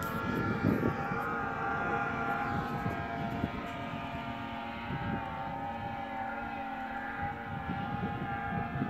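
Snowmobile engine running steadily, a held stack of even tones that waver slightly, over an irregular low rumble.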